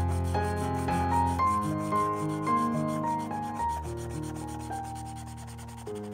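Felt-tip paint marker scratching back and forth on paper, over background music of sustained notes with a slow melody and bass.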